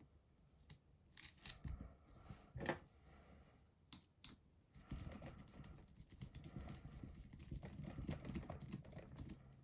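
Faint small clicks and scratchy handling noises of plastic RC-car kit parts and a small hand tool being worked, with one sharper click about two and a half seconds in and a denser run of scratching ticks over the second half.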